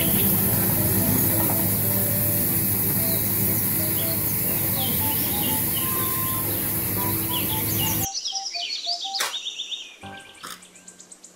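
Compact street sweeper at work: its engine hums steadily under a loud hiss from the spinning side brushes. Bird chirps and a simple tune of short notes play over it. The machine noise cuts off suddenly about eight seconds in, leaving faint ticks and chirps.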